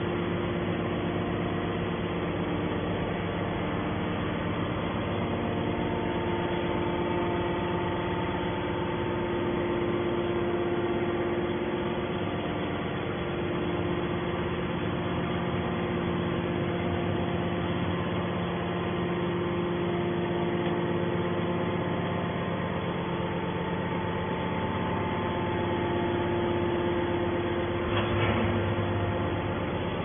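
Hydraulic power unit of a horizontal metal baler running, a steady machine hum with several constant tones. A brief knock comes near the end.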